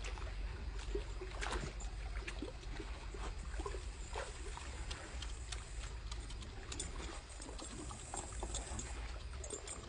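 Lake water splashing and lapping as a large dog swims and wades through the shallows, with many small irregular splashes over a steady low rumble.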